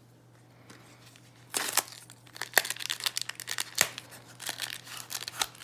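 Foil trading-card booster pack wrapper crinkling and being torn open, a dense run of sharp crackles starting about a second and a half in.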